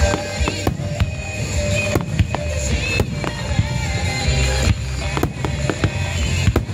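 Aerial firework shells launching and bursting in a rapid barrage: about a dozen sharp cracks and bangs at uneven spacing over a low rumble. Music plays along with the show.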